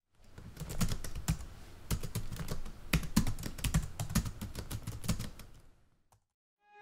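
Typing sound effect: fast, irregular keystroke clicks on a keyboard, stopping about a second before the end.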